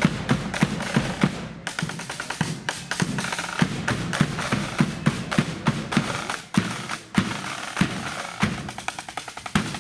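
Marching band drum corps playing: snare drums rattling in rolls over a steady bass drum beat.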